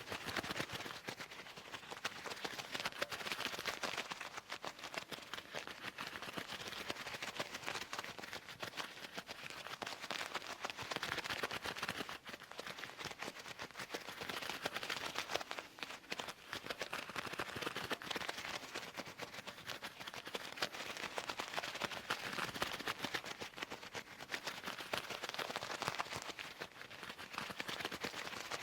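Leather gloves being worked close to the microphone: a continuous crackly rustle of leather rubbing and creasing, packed with tiny clicks, swelling and easing every few seconds.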